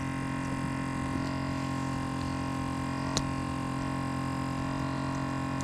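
A steady hum of several held tones, unchanging throughout, with a single faint click about three seconds in.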